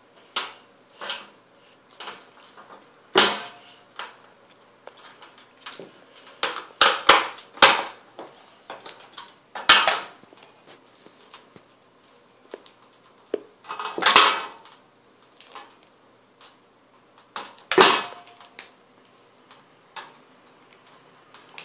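Hands working an electrical cable and tools inside a sheet-metal fluorescent light fixture: irregular clicks, taps and rustles, with about four louder scrapes spread through.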